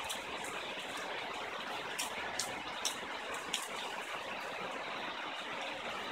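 Soft, steady hiss with a few faint clicks scattered through it.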